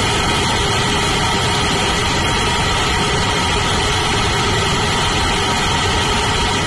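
Blue Origin BE-4 methane–liquid oxygen rocket engine firing on a test stand during a hot-fire acceptance test: a loud, steady, unbroken rushing noise of rocket exhaust, with faint steady tones inside it.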